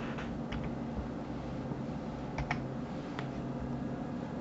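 A few sharp clicks from a computer mouse, its buttons and scroll wheel, two close together about two and a half seconds in, over a steady low hum.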